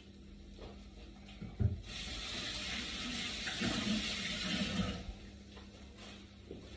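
A single knock, then a kitchen water tap runs for about three seconds and is shut off.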